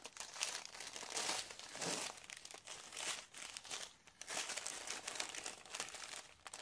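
Strips of small clear plastic bags holding diamond-painting drills crinkling as hands pick them up, shift and lay them out, in a run of irregular rustles.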